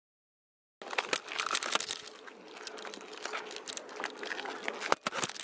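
Complete silence for under a second, then footsteps crunching on gritty rock and gravel with dense crackling and rustling close to the microphone.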